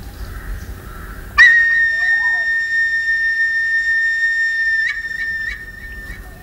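Flute music: after a soft breathy start, one loud, steady high note comes in suddenly about a second and a half in and is held for about three and a half seconds, then breaks into a few short notes near the end.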